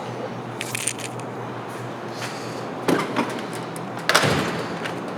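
Metal tool chest drawers being shut and pulled open, with short clicks and clatter of the tools inside about a second in and near three seconds, then a louder sliding rush of a drawer on its runners about four seconds in. A steady low hum runs underneath.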